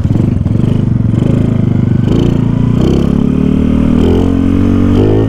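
Motorcycle engine heard from the rider's seat, pulling away and accelerating, its pitch climbing from about two seconds in.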